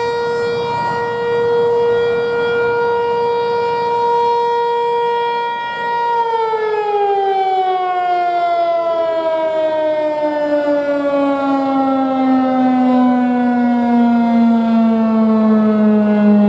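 Outdoor warning siren (civil defense siren) sounding during a test: a loud steady tone that, about six seconds in, starts falling steadily in pitch as the siren winds down.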